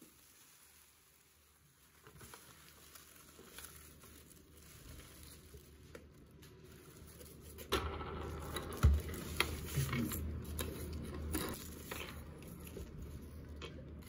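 Food frying in a pan, with scattered clicks and knocks of a utensil. The sizzle is faint at first, then turns suddenly louder a little under eight seconds in.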